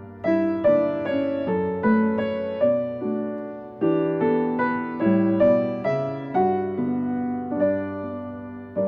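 Background piano music: a gentle melody of single struck notes, about two a second, each fading away.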